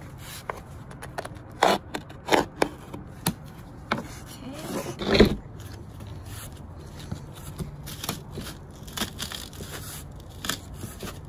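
Utility knife blade scraping along cement backer board in several short scoring strokes, then a louder crack about five seconds in as the board snaps along the score line when bent.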